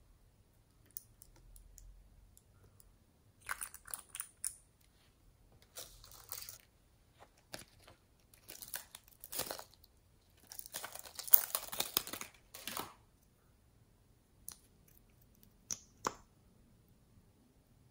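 Small plastic containers handled and opened: several bursts of crinkling and crackling plastic, loudest about two thirds of the way in, then a few short sharp clicks near the end.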